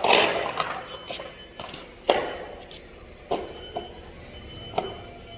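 Sharp metallic knocks and clanks, each with a short ringing decay: a loud one at the start, then single knocks about two, three and five seconds in, like stainless steel parts being knocked or set down.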